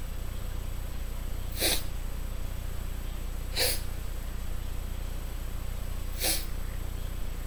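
Three short breaths through the nose into a close microphone, about two seconds apart, over a steady low electrical hum and hiss.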